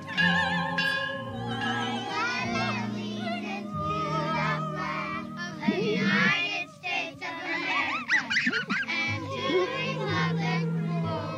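Film soundtrack music: young voices singing a slow ballad with vibrato over sustained orchestral accompaniment.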